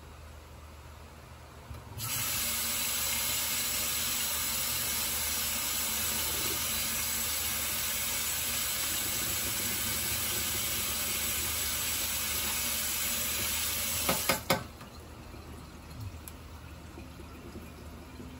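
Kitchen tap running in a steady hiss of water for about twelve seconds, then shut off with a few sharp clunks.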